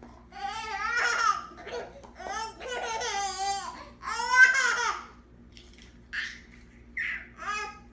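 A baby laughing hard in long, high-pitched peals for about the first five seconds, then three short giggles.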